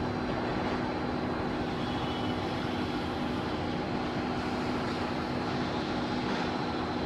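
A machine engine running steadily with a constant hum that does not change, most likely the pile driver's own engine idling.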